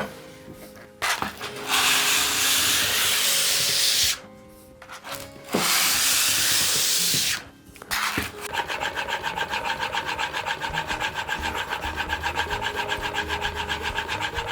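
Workshop tool work: two bursts of hissing, each about two seconds long, then fast rhythmic rubbing at about five strokes a second.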